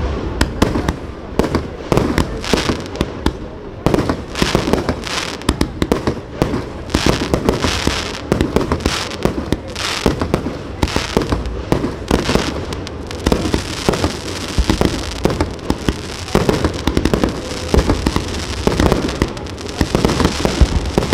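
Aerial fireworks going off in rapid succession: a dense, continuous run of bangs and crackling reports, with more crackle from about 13 seconds in.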